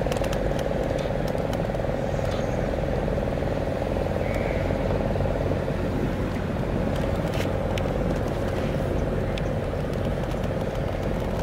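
Houseboat engine running steadily while cruising: a constant drone with a steady hum, and faint scattered ticks over it.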